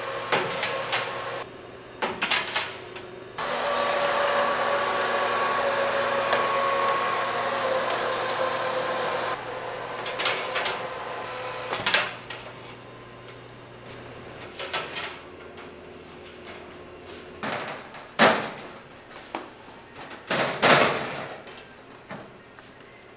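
Convection oven's fan running with a steady hum and whine, which drops out for a moment and stops about nine seconds in. Then metal baking trays clank and knock as they are handled, with sharp strikes near the end.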